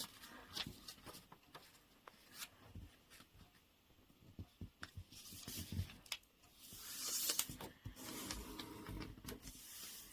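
A sheet of origami paper being folded by hand: faint crinkles and small taps, then a longer rubbing swish about two thirds through as a crease is pressed flat.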